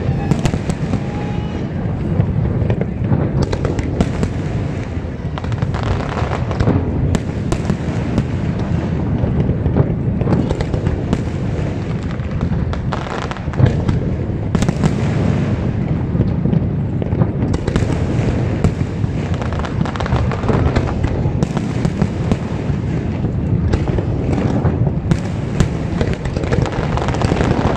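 Fireworks display: a continuous rumble of bangs and crackling, with many sharp reports scattered irregularly throughout.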